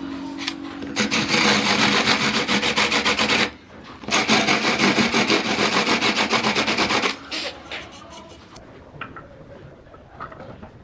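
Homemade angle-grinder wood lathe running with a tool or abrasive pressed against the spinning wood, giving two loud rasping passes with a short break between, over the motor's steady hum; afterwards only a few light knocks.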